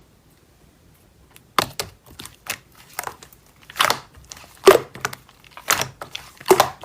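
Slime being pressed and squished by hand, giving an irregular string of crackling clicks and pops that starts about a second and a half in.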